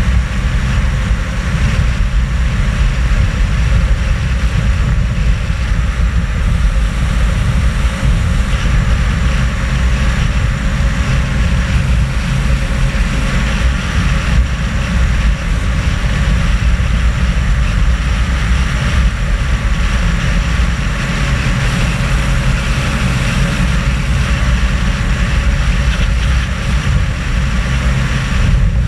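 Nissan Patrol GR driving steadily at road speed: a constant rush of wind over an externally mounted camera, over a low drone of engine and tyres.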